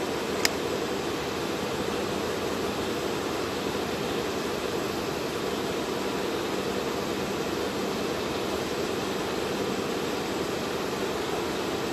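Steady rushing background noise with a faint low hum, and one short sharp click about half a second in.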